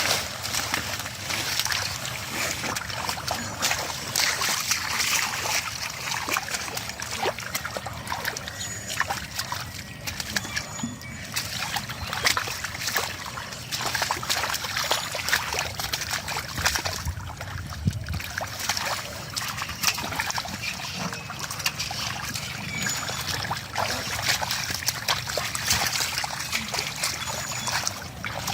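Shallow muddy water splashing and sloshing without a break, stirred by hands and legs working through water hyacinth, with many small splashes and drips.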